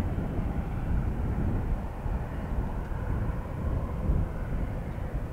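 Boeing 737 airliner's jet engines heard outdoors as a steady noise, strongest in the low end.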